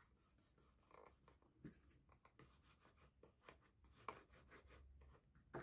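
Near silence with faint rustling and light taps of cardstock and ribbon being handled, the clearest tap about four seconds in.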